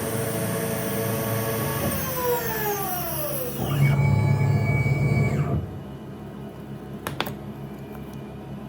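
An electric power tool's motor whining, then slowing with a falling whine about two seconds in. A louder, lower hum follows for about two seconds and cuts off suddenly. A sharp click comes near the end.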